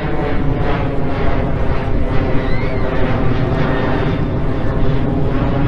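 Steady, unbroken engine drone, with a brief faint chirp about two and a half seconds in.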